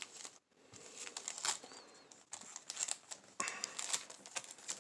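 Faint crinkling and light clicks of trading cards and a foil Yu-Gi-Oh booster pack being handled. The rustling grows slightly louder about three and a half seconds in.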